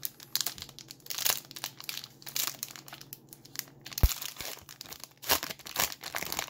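Wrapper of a basketball trading-card fat pack crinkling and tearing as it is pulled open by hand, with a short thump about four seconds in.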